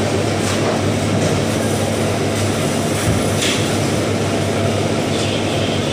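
Steady machinery drone with a constant low hum, with a few faint scrapes or clicks through it.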